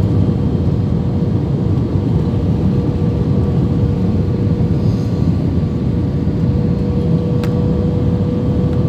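Jet airliner cabin noise on the approach to landing, flaps extended: a steady roar of engines and airflow with a constant hum over it. A single faint click comes about seven and a half seconds in.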